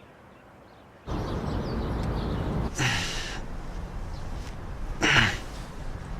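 A person sighs twice, two breathy exhales with a falling voice, over a steady low background hum that starts suddenly about a second in.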